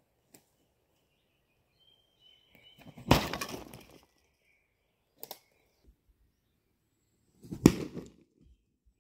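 Thrown holly rabbit stick landing with two sharp cracking impacts, about three seconds in and again near the end, the second the louder, with a smaller knock between them.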